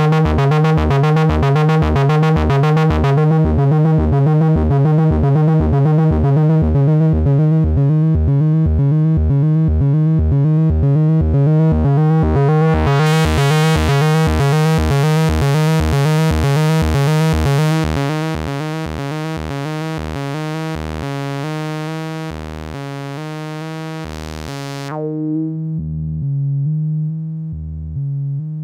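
Home-built Step Sister analog step-sequencer synth playing a fast repeating loop of saw-wave notes through its resonant low-pass filter, with the knobs being turned as it plays. About thirteen seconds in the sound turns much brighter. Later the steps slow down, and near the end the high end drops away.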